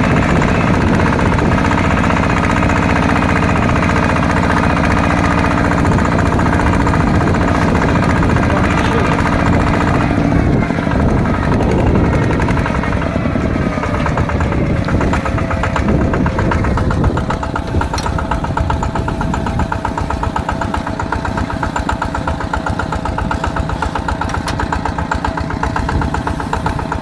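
Small tractor's single-cylinder diesel engine running steadily with a fast chugging beat, its pitch shifting and sliding down a little about halfway through.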